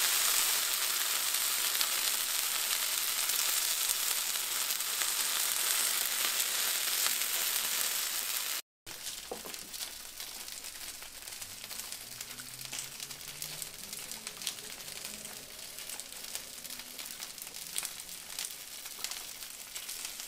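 A cheese-filled quesabirria taco frying in oil on a flat griddle, with a steady sizzle. About nine seconds in it cuts off abruptly to a much quieter stretch of faint clicks as a wooden spoon ladles birria stew from the pot.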